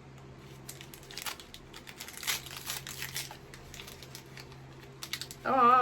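Small plastic packet crinkling as it is handled and opened, strongest about two to three seconds in, over a faint steady low hum.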